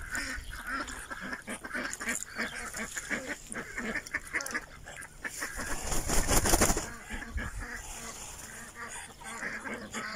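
Muscovy ducks calling with many short, repeated calls. About six seconds in, one flaps its wings hard for about a second, a loud whooshing flurry, the loudest sound here.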